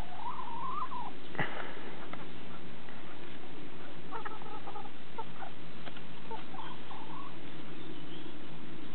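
Dutch bantam chickens calling. A short call rises and falls in the first second, then short clucking calls come around four seconds in and again around six to seven seconds, over a steady background hiss.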